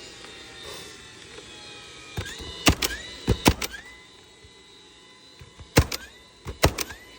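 Pneumatic roofing nailer firing nails through asphalt shingles: two clusters of sharp shots, the first about two seconds in and the second near the end.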